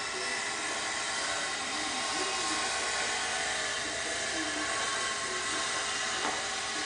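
A steady hiss, with one faint sharp knock about six seconds in.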